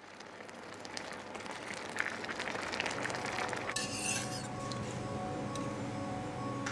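A spatula stirring and scraping a thick tomato and chili curry in a metal frying pan, then a spoon scraping and clinking in a small stainless steel saucepan about four seconds in. Soft background music comes in about halfway.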